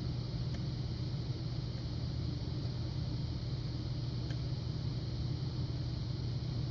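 Steady low background hum of room machinery, even in level throughout, with two very faint ticks about half a second and about four seconds in.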